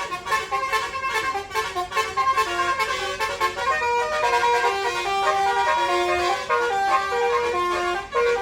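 Bus's telolet Basuri musical horn playing a tune. It opens with quick repeated short honks, then goes into a melody of held notes that step up and down in pitch.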